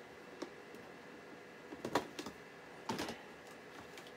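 Scattered light clicks and knocks of objects being handled on a workbench: one under half a second in, then small clusters around two and three seconds in.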